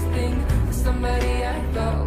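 Background music with a heavy, steady bass line and sustained pitched notes.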